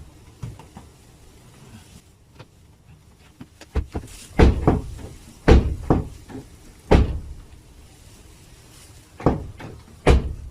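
Toyota Corolla car doors being shut, about half a dozen heavy thuds between about 4 and 10 seconds in.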